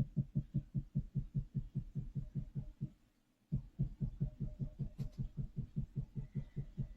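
A rapid, steady run of short low pulses, about five a second, that breaks off for a moment about three seconds in and then resumes.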